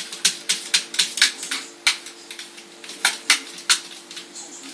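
A cat's paw and claws tapping and scrabbling at the lid and top of a round aquarium: an irregular run of sharp clicks, a few a second, over a steady low hum.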